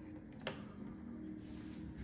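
Quiet handling of food and plastic takeout containers at a table: one sharp click about half a second in, then a soft scrape near the end, over a low steady hum.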